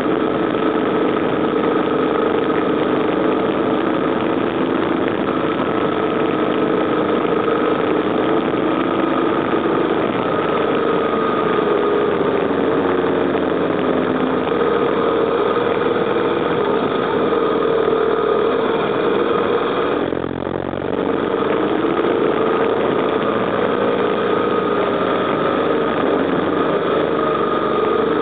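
BMW R1200GS Adventure's boxer twin engine running steadily while the motorcycle is ridden through bends, mixed with wind and road noise. The engine sound briefly drops and picks up again about twenty seconds in.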